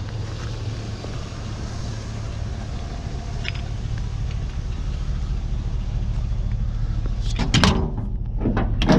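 Steady engine and road drone heard from inside a moving vehicle, slowly getting louder.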